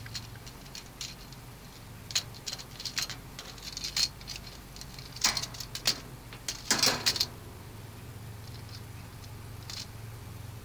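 Parakeet knocking a small toy truck about: a scatter of light clicks, taps and rattles, with louder clattering bursts about five and seven seconds in.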